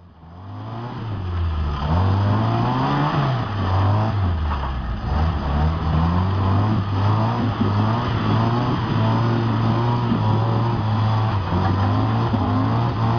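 Jeep engine revving hard under load as the Jeep climbs a steep dirt bank. Its pitch rises and falls over the first few seconds, then holds fairly steady at high revs.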